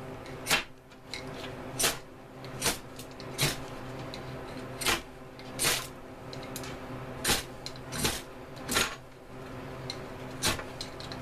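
Ferro rod struck again and again with a steel striker to throw sparks: about a dozen short, sharp rasping scrapes, roughly one a second in uneven runs, over a steady low hum.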